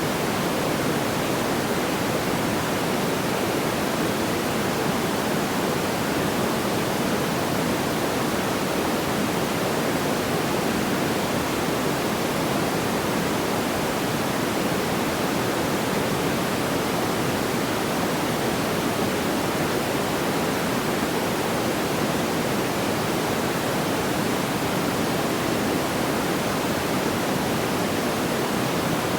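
Steady, even rushing noise like pink noise, fullest in the lower middle range, with no distinct crackles or pops and no change throughout.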